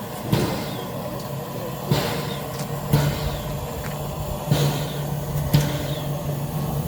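Steam locomotive moving slowly at the platform: a steady low hum with short, sharp sounds coming irregularly about once a second.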